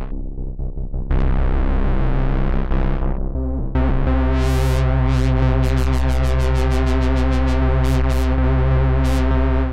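Software bass synthesizer (Ableton Creative Extensions' Max for Live Bass instrument) holding low, sustained synth bass notes. About four seconds in, a brighter layer with a fast run of sharp ticks comes in over it. The sound cuts off abruptly at the very end.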